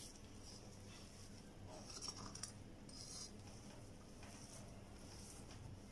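Faint, scattered soft squishing and scraping of boiled potato being mashed and mixed with salt.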